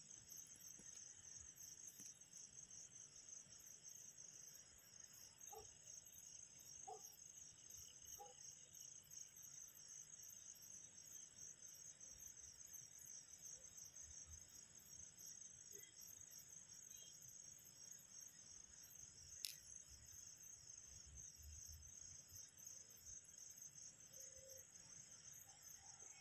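Faint, steady chirring of crickets in a night-time insect chorus, with a single sharp click about two-thirds of the way through.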